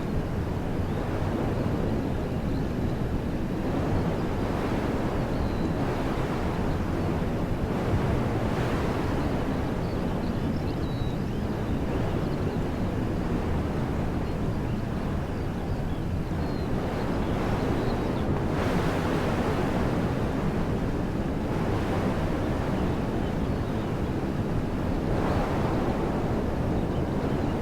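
Wind blowing through woodland trees: a steady rush that swells in gusts several times, with a low rumble of wind on the microphone.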